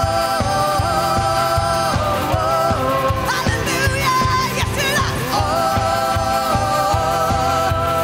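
Live worship song: several women singing together in long held notes, some with vibrato, over stage keyboard and a steady low beat.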